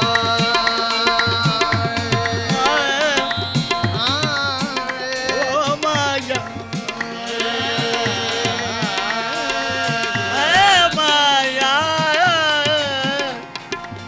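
Qawwali music: tabla drumming under a held melody line, joined from about two and a half seconds in by a wordless melody that slides and wavers up and down.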